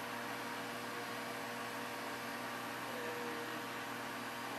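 Steady whirring hum of a ventilation system, even and unchanging, with a faint constant hum underneath.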